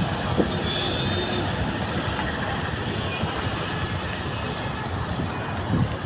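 Steady rumble of road traffic with tyres hissing on the rain-wet road as auto-rickshaws, motorcycles and cars pass close by.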